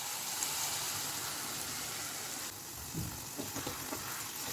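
Chicken frying in a kadai with a steady sizzle as the ground masala goes in, with a few faint low knocks about three seconds in.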